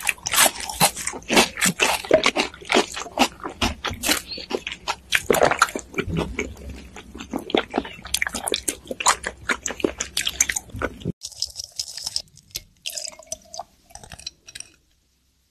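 Close-miked eating and drinking mouth sounds: crunching and chewing tortilla chips, with slurps of chocolate bubble milk tea through straws, in dense rapid crackles and clicks. About eleven seconds in it cuts off abruptly to fainter, sparser clicks, which stop shortly before the end.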